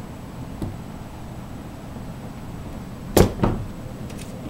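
Winchester rifle's action worked by hand: a light click, then about three seconds in two loud, sharp metallic clacks a quarter second apart.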